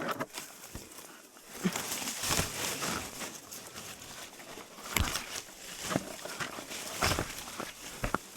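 Leaves and branches rustling, with irregular knocks and snaps, as a climber pushes down through dense tree foliage.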